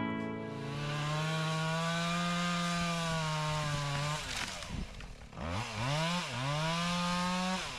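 Chainsaw engine running at high revs for about four seconds, dropping back, then revved up twice more with its pitch rising and falling each time.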